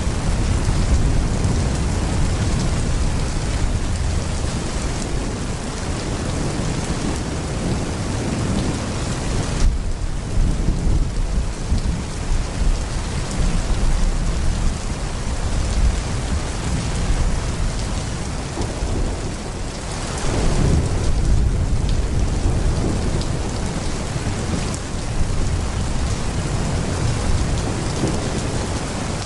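Heavy rain pouring steadily, with low thunder rumbling underneath. A louder roll of thunder swells a little past two-thirds of the way through.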